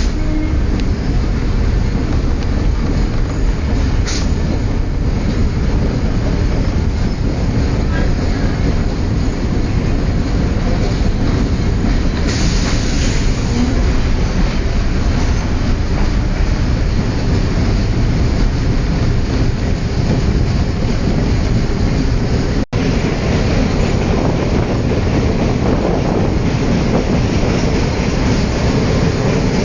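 Suburban passenger train running along the track, with a steady loud rumble of wheels on rails. The sound breaks off for an instant about two-thirds of the way through.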